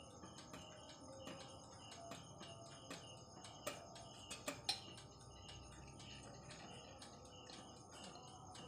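Crickets chirping faintly in a steady repeating rhythm, about two chirps a second. A few light, sharp clicks come through around the middle.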